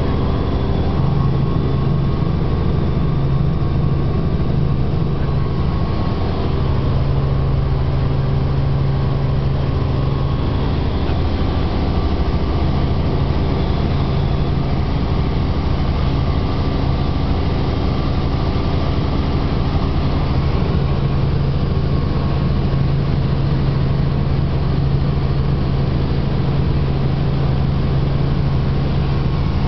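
Light helicopter's engine and rotor noise heard inside the cabin in steady flight: a constant loud drone with a low, even hum.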